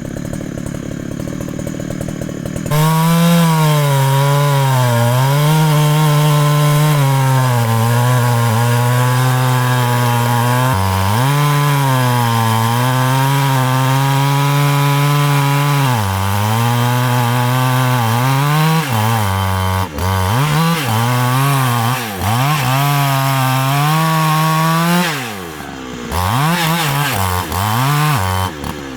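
Large two-stroke Husqvarna chainsaw cutting into the thick trunk of a rain tree. It comes up to full throttle about three seconds in, and the engine note sags and picks back up as the chain loads in the wood, dipping and recovering several times near the end.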